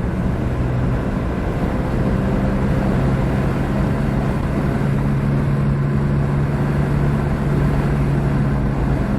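2008 Jeep Compass driving, with steady road and tyre noise and a low, steady hum from the front end, the humming noise that the owner traces to a worn right-side front wheel bearing.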